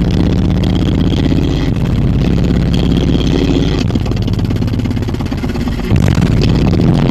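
Large car-audio subwoofers driven to maximum excursion, playing loud, deep bass-heavy music with a fast steady pulse; the bass briefly drops out about six seconds in.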